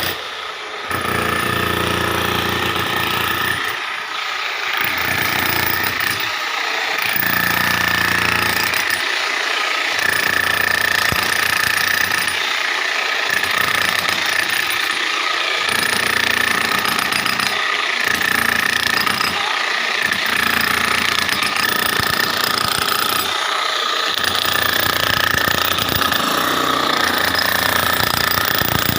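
Demolition hammer breaking up floor tiles and the concrete beneath, hammering steadily with short pauses every few seconds.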